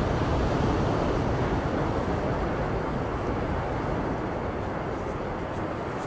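Steady rushing noise of wind and sea waves, heaviest in the low rumble, with no separate events standing out.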